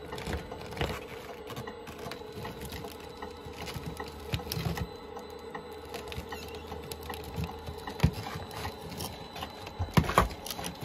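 Radio-controlled CAT D6T model bulldozer driving up the loading ramps of a model lowboy trailer: a steady motor whine under a patter of track clicks and clatter, with a few sharp knocks in the last few seconds.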